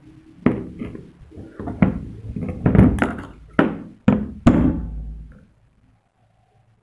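A run of about eight knocks and thuds as a small metal cylinder and a flat metal hand tool are handled and knocked together over a table. The knocks come unevenly and die away about five seconds in.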